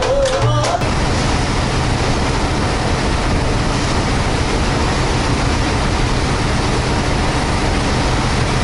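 Steady rumbling noise of a passenger ferry under way, even and unbroken.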